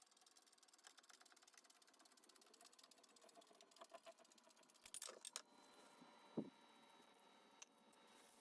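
Faint mechanical clicking from hand tools and metal parts being worked on a milling head, with a few sharper knocks about five and six and a half seconds in.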